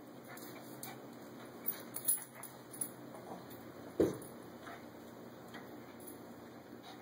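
A cat and a small dog play-fighting: scattered light clicks and scuffles of paws and claws, with one sharp thump about four seconds in.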